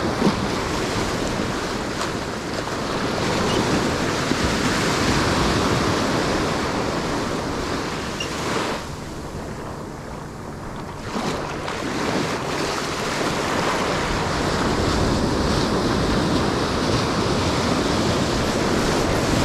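Ocean surf breaking and washing up a sandy beach, with wind buffeting the microphone. The wash eases briefly about halfway through.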